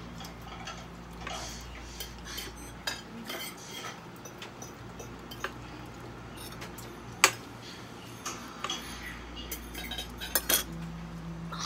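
Spoons and forks clinking and scraping against ceramic bowls and plates while people eat: scattered light clicks, with a sharper clink about seven seconds in and two more near the end.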